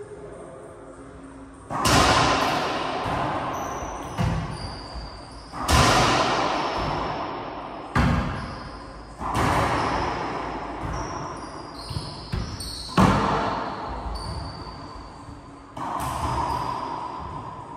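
Racquetball rally: the ball cracking off racquets and the court walls in hard hits every one to three seconds, each one ringing on for a second or two in the echoing court.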